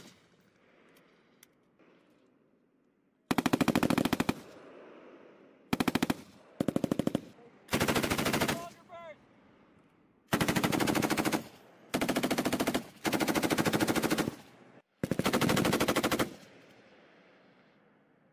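Belt-fed machine guns, the 7.62 mm M240B and the M249 light machine gun, firing about eight short bursts of rapid shots, each half a second to a second and a half long, with an echo trailing off after each burst.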